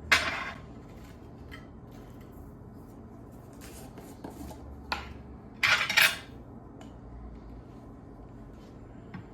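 Dishes and cutlery clattering: a loud clatter right at the start and a louder one about six seconds in, with lighter clinks between.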